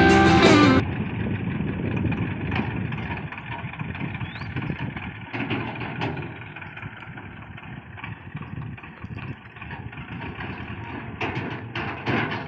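Background music that cuts off about a second in, then the diesel engine of a Swaraj 724 FE 4WD tractor running steadily as it tows an empty tipping trolley. A few sharp knocks come near the end.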